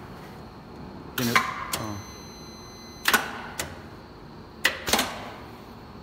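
Pneumatic press of a high-frequency plastic welding machine working through a cycle: a series of sharp mechanical clacks as the head comes down and lifts, about five in all, with a thin high whine for about a second between the first two.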